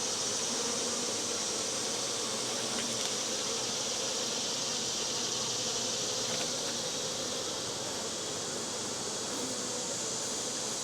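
Swarm of honey bees buzzing around an open hive, a steady, unbroken hum.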